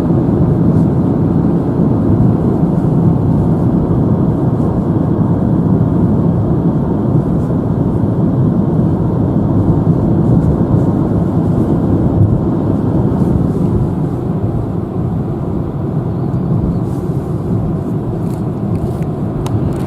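Steady road and engine noise inside a moving car's cabin, a low, even drone.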